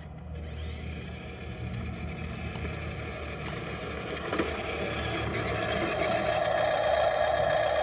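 Remote-control toy garbage truck's electric drive motor whining as the truck rolls along a concrete sidewalk toward the microphone, growing steadily louder as it comes close.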